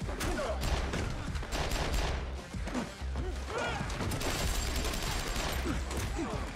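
Rapid gunfire in repeated bursts, layered over electronic music with a heavy bass beat.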